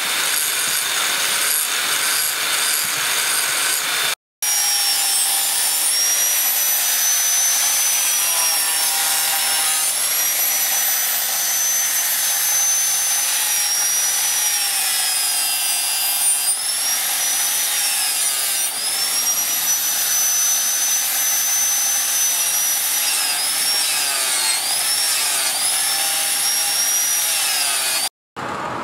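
Angle grinder grinding a spring-steel sword blade, first with a grinding disc throwing sparks, then, after a short break, with a sanding disc sanding the blade. Its high motor whine dips in pitch each time the disc is pressed harder into the steel, several times near the end.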